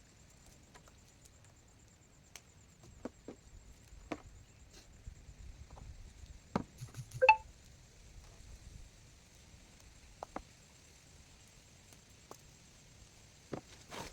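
Scattered light knocks and taps of cookware and utensils being handled, with one loud ringing metal clink about seven seconds in.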